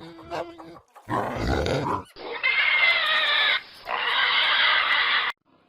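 Pigs grunting and squealing, with a long high squeal from about two and a half seconds in that cuts off suddenly near the end.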